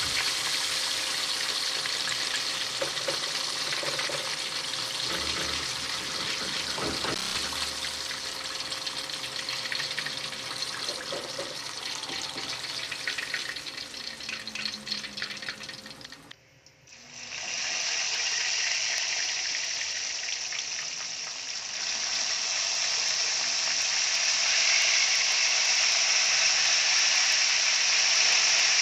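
Chicken wings deep-frying in hot oil: a dense crackling sizzle that breaks off briefly about two-thirds through, then carries on as a steadier hiss.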